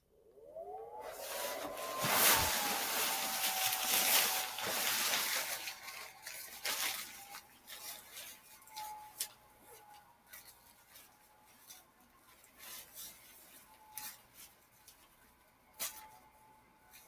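Small blower fan of an inflatable costume switching on: its whine rises in pitch over the first second or two, then holds steady. A rush of air and rustling nylon is loudest for the first several seconds as the costume fills, with scattered light clicks later.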